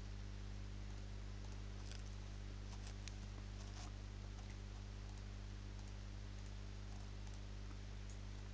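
A few faint computer clicks over a steady low hum, most of them between about two and four seconds in.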